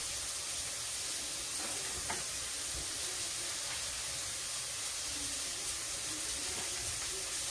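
Mushrooms frying in a pan, giving a steady sizzle.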